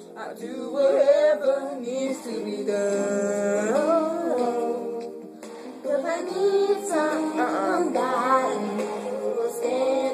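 Music with female voices singing a slow R&B song, the sung lines gliding and holding over sustained backing notes, with a brief pause about five seconds in.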